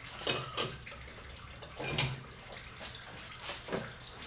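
Metal motorcycle clutch plates clinking as they are handled: two sharp, ringing clinks close together near the start and another about two seconds in, with softer handling noise between.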